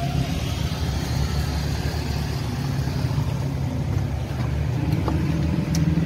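Steady engine rumble of road traffic running close by, with a few faint light clicks.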